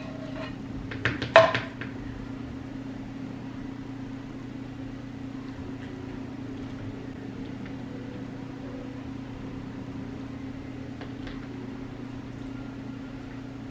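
A few sharp clinks of dishes and utensils in the first second and a half. After that only a steady low electrical hum from a running kitchen appliance.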